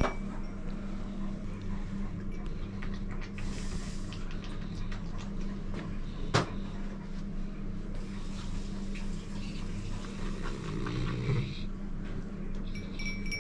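Handling noises during ear treatment of a dog with ear medicine: a brief hiss about three and a half seconds in and a single sharp click a little past six seconds, over a steady low hum.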